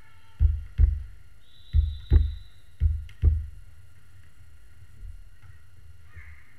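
Volleyball bounced on a hardwood gym floor before a serve: six deep thuds in three quick pairs, each ringing briefly in the hall.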